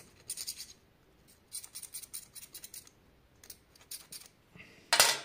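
Quick scratchy scrubbing strokes in three short bursts, then a single sharp clatter near the end.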